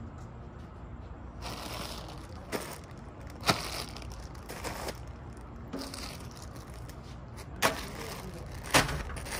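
Plastic bags of rubber bands crinkling and rustling as they are handled, in several stretches. Sharp knocks break in a few times, the loudest about three and a half seconds in and twice near the end, as things are set down on a glass tabletop.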